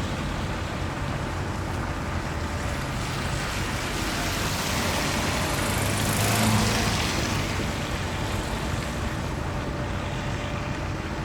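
Cars driving past on a road: a steady wash of engine and tyre noise, with one vehicle passing close about six seconds in, swelling and then fading.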